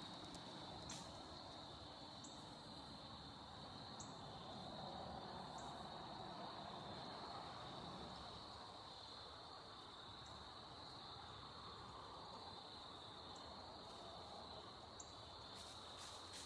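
Faint outdoor ambience with a steady high-pitched insect chorus that does not let up, and a few faint scattered clicks.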